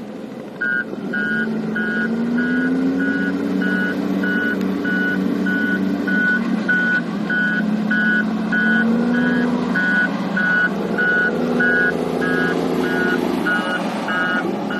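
A vehicle's reversing alarm beeping about twice a second, starting about a second in, over an eight-cylinder diesel engine running with its speed rising and falling.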